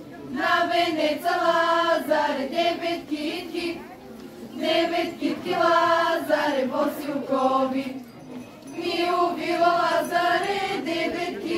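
A group of lazarki, girls and young women, singing a traditional Bulgarian lazaruvane ritual song together in unison. It comes in phrases of held notes about four seconds long, with a short breath between phrases.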